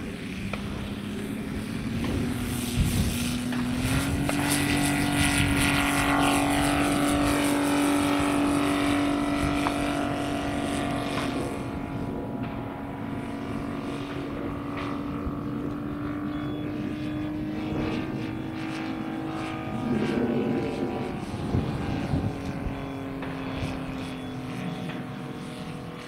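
Saito 60cc three-cylinder four-stroke radial petrol engine of a 1/5-scale RC Westland Lysander, opened up for the takeoff: its pitch climbs over the first few seconds, then holds steady at full power as the model climbs away and the sound slowly fades. About twenty seconds in there is a brief rush of noise, after which the engine settles to a slightly lower, steady note.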